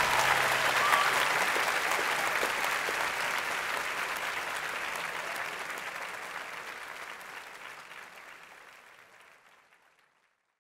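Audience applauding at the end of a stage musical number, the clapping fading out gradually until it is gone near the end.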